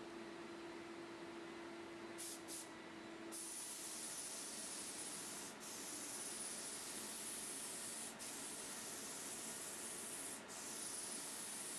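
Paint spray gun spraying: two short hissing bursts about two seconds in, then a steady hiss of air and paint broken by three brief gaps.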